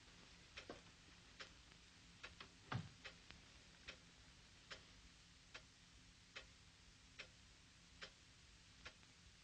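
Faint, slow, even ticking of a clock, a little more than one tick a second. A single low thump comes about three seconds in.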